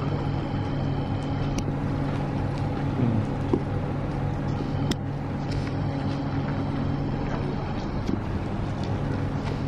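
Electric commuter train (elektrichka) standing at the terminus platform, its machinery giving a steady hum with a few sharp clicks.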